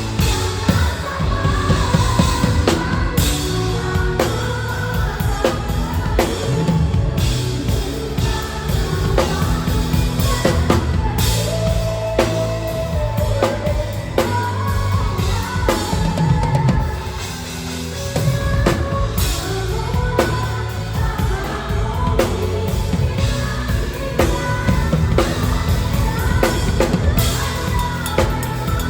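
Pop song played by a band, with a drum kit driving a steady beat of kick and snare under a sung melody. Cymbal crashes land regularly, about every four seconds.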